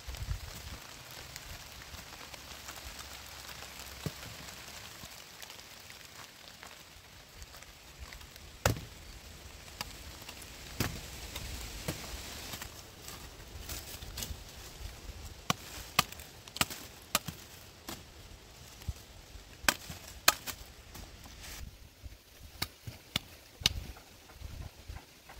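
Machete chopping into wood in sharp, irregular strikes, sparse at first and coming thick and fast in the second half.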